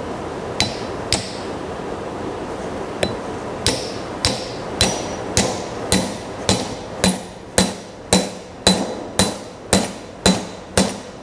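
Hammer blows driving an epoxied wooden wedge into the top of a sledge hammer's handle to lock the head on: a few spaced knocks, then a steady run of about two sharp blows a second with a short metallic ring, getting louder as it goes.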